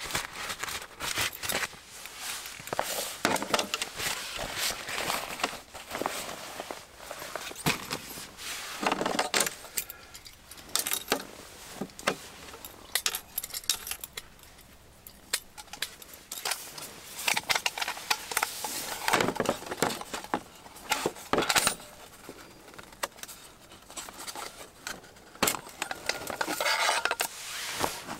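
Camping gear being handled on a folding table: bag rustling, clicks and metallic clattering as a camp stove burner is fitted to its gas canister and metal cooking pots are set out.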